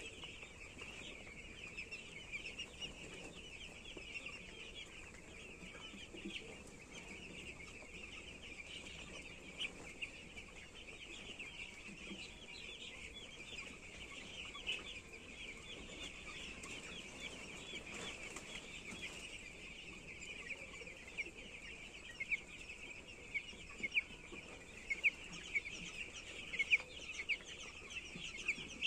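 A flock of young chicks peeping, many high cheeps overlapping into a continuous chorus, with some louder single peeps near the end.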